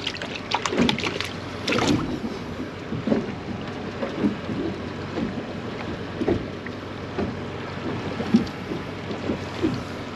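Choppy water slapping irregularly against a small boat's hull, with wind buffeting the microphone. A few sharp clicks of handling come in the first two seconds.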